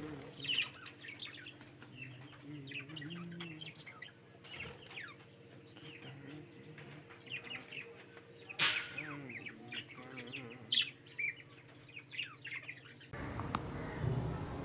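Birds chirping in many quick high calls over low, wavering coos, with two sharp sudden sounds in the middle. About a second and a half before the end this gives way to a steady noisy background.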